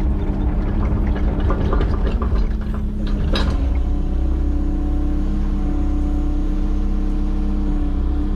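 Excavator's diesel engine running steadily at idle, with scattered knocks and clicks in the first few seconds, the loudest about three seconds in.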